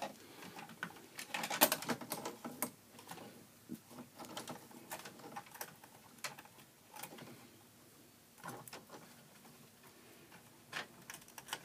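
Wire being fished and handled inside a metal breaker panel: scattered light clicks, taps and rustles of the wire and fingers against the panel's metal and the terminal bar.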